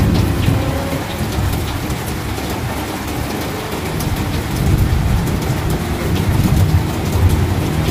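Heavy rain falling steadily, with a low rumble of thunder that swells about halfway through and carries on near the end.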